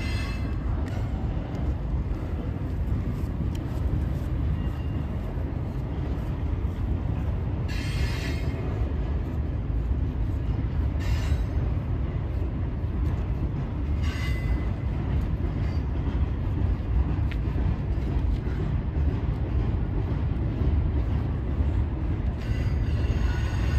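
Double-stack intermodal freight train rolling across a steel girder bridge overhead: a steady low rumble of wheels and cars, with a few short high-pitched wheel squeals, the last one near the end.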